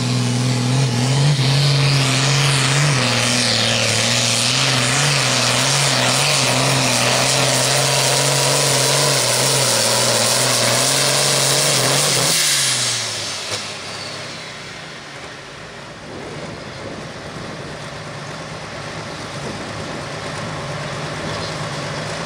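International Harvester Pro Farm pulling tractor's diesel engine running flat out under full load as it drags the sled. About twelve seconds in, the engine winds down as the pull ends, then settles to a steady idle.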